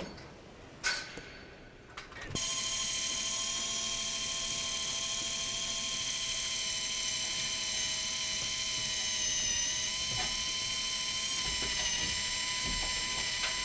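Cordless drill running steadily with a high motor whine, held overhead against the underside of a scoreboard. It starts abruptly about two seconds in, after a couple of short knocks.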